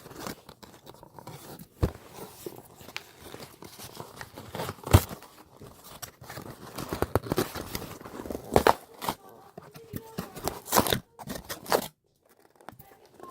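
Plastic packaging being torn and peeled off a toy box by hand: irregular crinkling and crackling, with a few sharp snaps.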